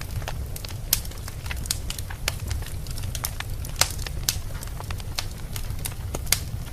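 Wood fire burning in a fireplace, crackling and popping at irregular intervals over a low steady rumble of the flames, with a few sharper pops about a second in, near the middle and near the end.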